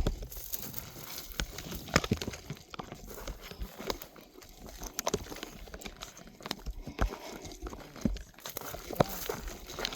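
Footsteps crunching on rocky, gravelly ground, in irregular steps with sharp scrapes and clicks.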